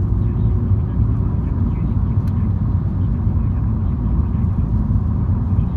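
MINI car being driven: a steady low rumble of engine and road noise.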